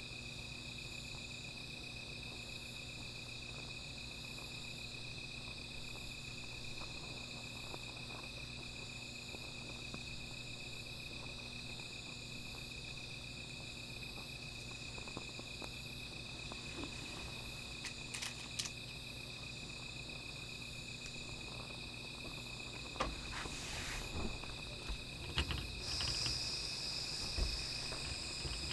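Night insects calling together: one cricket holds a steady high trill while others chirp in an even repeating pulse above it. Another high trill joins near the end. Scattered clicks and knocks come in over the last ten seconds.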